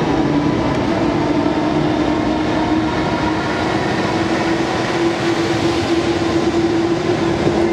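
JR Freight EF210 'Momotaro' electric locomotive running light through a station: a steady rolling noise with a steady hum, the hum growing stronger as the locomotive draws level about five seconds in.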